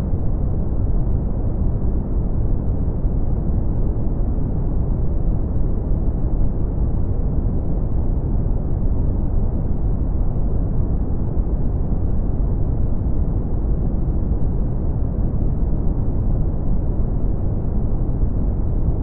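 Brown noise: a steady, deep rush that is strongest in the bass and fades out toward the highs, with no changes.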